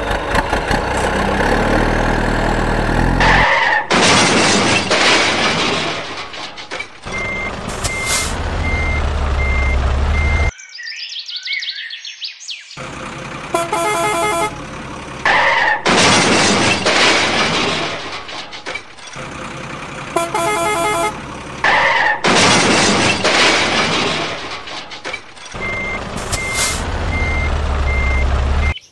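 Truck sound effects laid over the picture: a truck engine running, horn blasts, stretches of hissing and a steady beeping, in a repeating loop. There is a short break of silence about ten seconds in.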